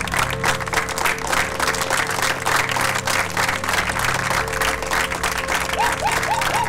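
Audience applauding steadily over background music, with a few short rising-and-falling whistle-like notes near the end.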